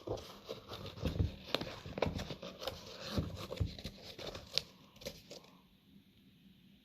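Shoe box and its paper packaging being handled: irregular rustling, crinkling and light knocks that die down about five and a half seconds in.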